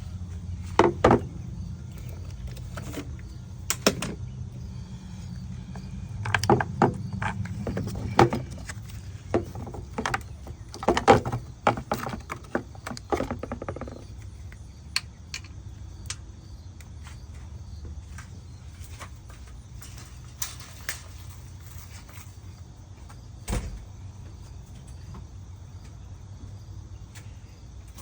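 Irregular clicks, knocks and clatter of hand tools and car parts being handled under the hood, in bunches during the first half and sparser later, over a steady low rumble.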